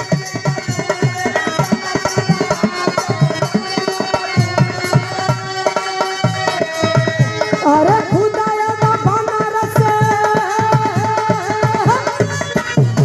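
Live folk-style music with no singing: a fast, steady hand-drum beat, with a melody of long held notes coming in over it about eight seconds in.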